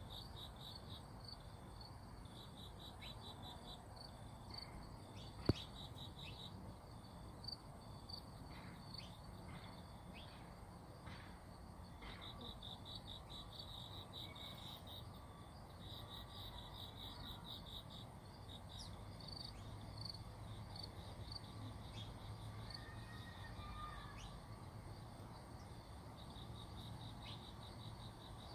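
Faint insects chirping in repeated fast pulsing trills over a steady high hiss, with a single sharp click about five seconds in.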